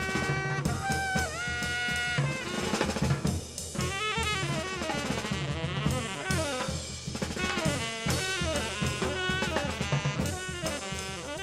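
Background music: a drum-kit beat under a melody with sliding notes.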